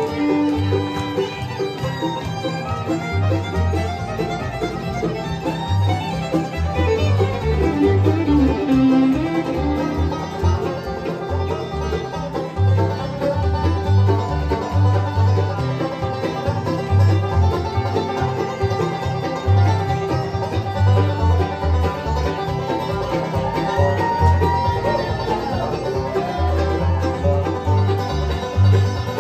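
Bluegrass band playing an instrumental fiddle tune: fiddle, banjo, mandolin and acoustic guitar over a steady upright-bass pulse.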